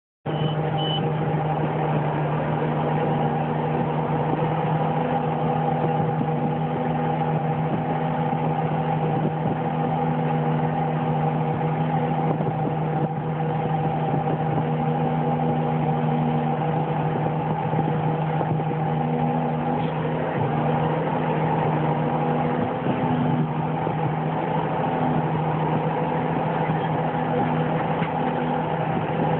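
John Deere 540G skidder's diesel engine running steadily at an even speed, heard from the operator's seat as the machine travels.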